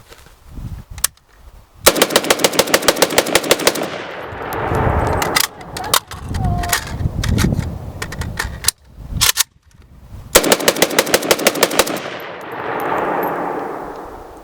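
Rapid rifle fire: two long strings of shots at about seven or eight a second, each followed by a rolling echo, with a few single shots in between.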